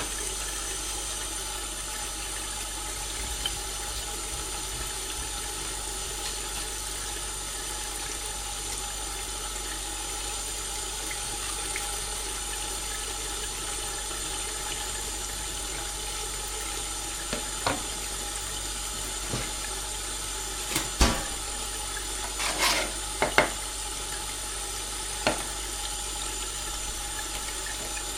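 A steady hiss with a faint hum, and a few short knocks of a knife on a wooden chopping board during filleting, clustered in the second half with the loudest a little past the middle.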